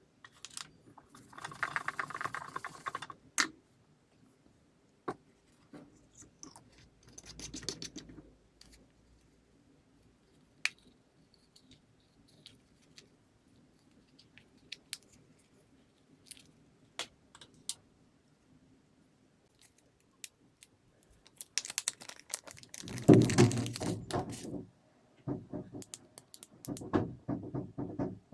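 Scattered small clicks, ticks and scrapes of hands handling small plastic parts and tools during a repair, with a louder stretch of rustling and scraping for the last several seconds.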